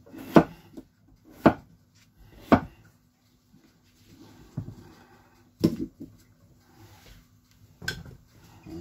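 Whole potatoes set down one by one into a roasting pan, knocking against the pan and each other. There are three sharp knocks about a second apart near the start, then a few more spaced further apart.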